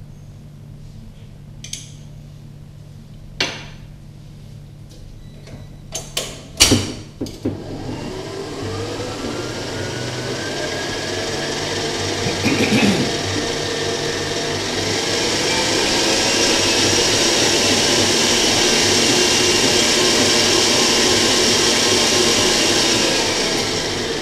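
Electric stand mixer beating creamed butter, sugar and condensed milk for cookie dough in a steel bowl. A few sharp knocks come first, then the motor starts and its whine climbs in pitch as it speeds up over several seconds. It runs steadily and then slows down near the end.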